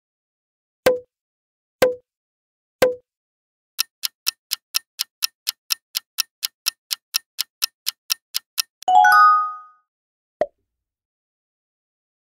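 Quiz sound effects: three short pops about a second apart, then a clock-like countdown ticking at about four ticks a second for about five seconds. The ticking ends in a bright chime about a second long, and one more pop follows.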